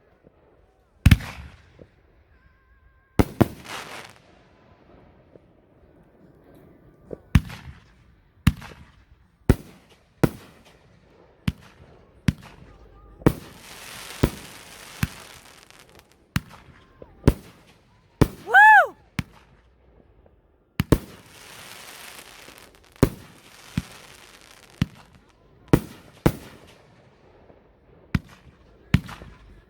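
Fireworks going off: a string of sharp bangs, one or two a second, with stretches of crackling. A short whistle about 18 seconds in is the loudest moment.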